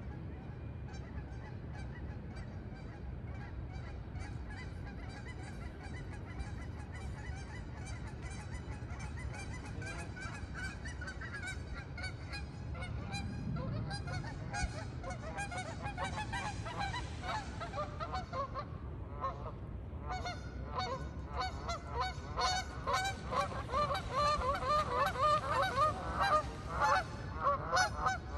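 A flock of geese honking, many calls overlapping. The calls grow louder and busier from about halfway through and are loudest near the end, over a steady low rush of water.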